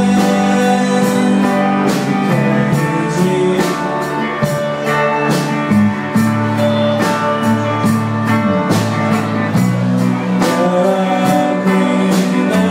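A rock band playing live on electric guitars, bass and drums, with a steady beat of drum and cymbal hits and a male voice singing.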